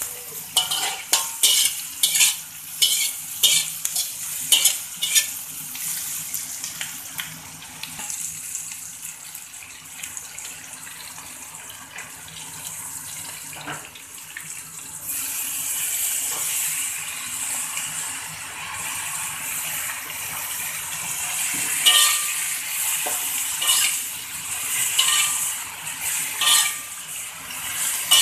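A metal spatula scraping and clinking against a wok over the steady sizzle of green chillies and dried anchovies frying in oil, with quick clinks in the first few seconds. About halfway through, the sizzle turns much louder and hissier as the freshly washed mustard greens go into the hot oil, and a few more spatula clinks follow.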